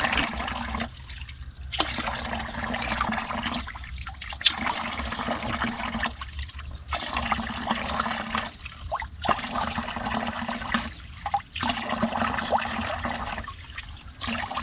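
Stream water running and splashing, breaking off briefly every two to three seconds.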